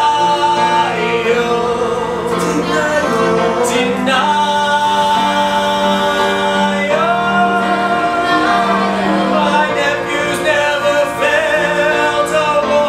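Live singing with instrumental accompaniment: several voices hold long sustained notes together, changing pitch every second or two, over a steady low accompaniment.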